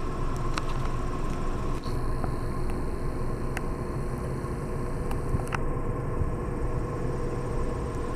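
Steady low rumble of a car heard from inside its cabin as it moves slowly in a traffic line, with a faint steady whine and a few light clicks.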